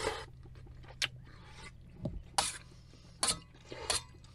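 A metal spoon scraping and clinking against a small stainless-steel pot of soup, about five separate short strokes.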